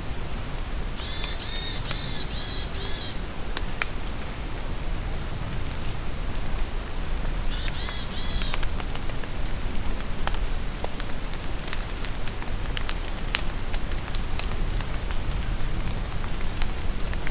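Steady rain falling in a forest, with drops ticking on leaves. A bird calls in two bouts of quick, harsh repeated notes, about a second in and again about eight seconds in, with faint high chirps from other birds between.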